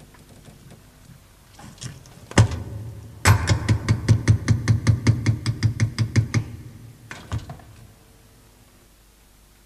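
A single loud knock, then a fast run of about twenty heavy knocks, about six a second for some three seconds, and one last knock near the end.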